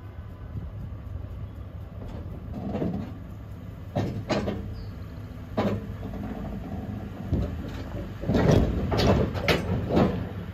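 Pickup truck engine running at low speed as the truck drives up onto a wooden-decked flatbed trailer, with a series of clunks and knocks from the trailer ramps and deck under its weight, loudest in a cluster near the end as the front wheels climb aboard.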